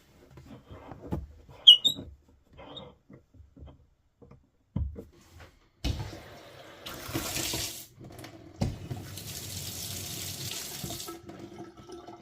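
A dual-lever kitchen mixer tap knocked and clicked as it is handled, then turned on to run water twice, first briefly and then for about two seconds.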